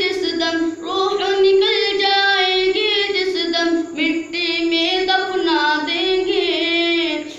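A boy singing a naat, an unaccompanied Islamic devotional song, in long held notes with wavering ornaments and short breaks between phrases.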